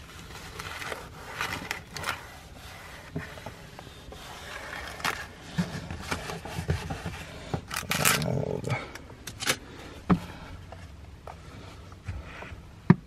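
A wet napkin being rubbed over a car door's plastic trim: irregular scraping and rustling, with a few sharp clicks and knocks, the loudest a click near the end.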